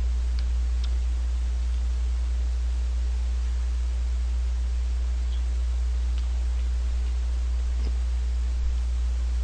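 Steady low electrical hum with constant hiss, with a few faint short ticks scattered through it.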